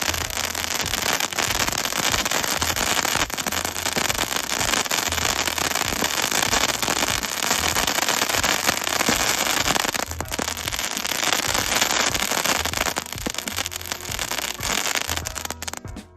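Crackling bat fountain firework burning: a dense, continuous shower of sharp crackles and pops that keeps up steadily and dies away near the end.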